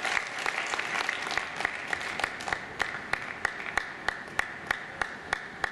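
Audience applauding, the dense clapping thinning out after a couple of seconds to a few evenly spaced claps, about three a second.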